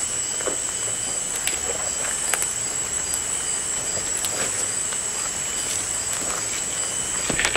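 Steady rush of flowing river water, louder with the current rain, under a continuous high-pitched insect trill. Scattered faint ticks, with a louder rustle near the end.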